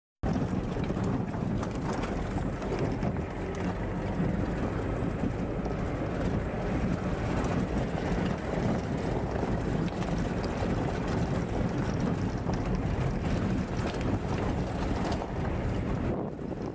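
Gusty wind buffeting the camera's microphone: a loud, low rumbling rush that rises and falls with the gusts, cutting in suddenly just after the start.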